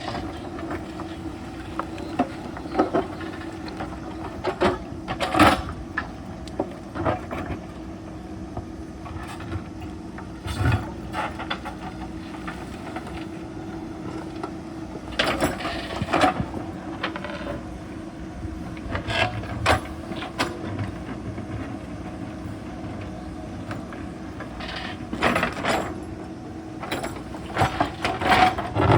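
JCB backhoe loader's diesel engine running steadily under load, with irregular knocks and scrapes of the bucket working against stones and rock every few seconds.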